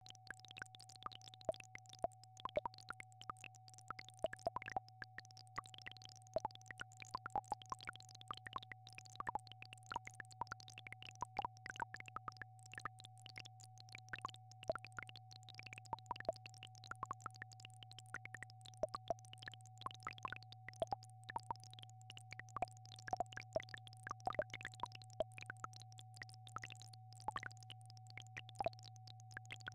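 Synthesized entrainment tones: a steady mid-pitched sine tone over a steady low pulsing drone, held unchanged, with scattered irregular clicks and crackles throughout.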